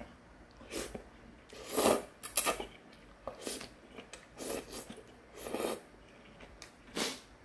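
A person slurping up spicy cold noodles (bibim-guksu) in a series of short, noisy slurps, the loudest about two seconds in.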